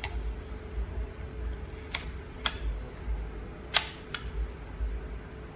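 Yashica 635 twin-lens reflex camera's leaf shutter clicking: two pairs of sharp mechanical clicks, each pair about half a second apart, the second pair louder.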